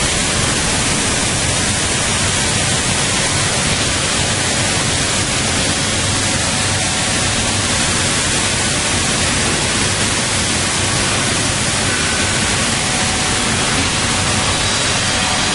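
Steady, even rushing noise with a faint low hum, from industrial machinery running.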